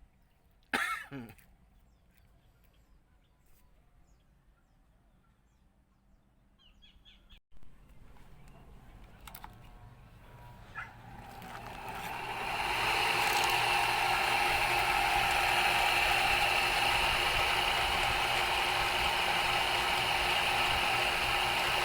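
An electric power tool starts up about twelve seconds in and runs steadily at speed, driving the improvised mini-lathe chuck. Earlier there is one short, sharp sound near the start and a few light knocks.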